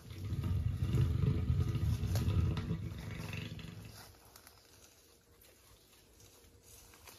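Asian elephant giving a deep rumbling growl that starts abruptly and fades out after about four seconds.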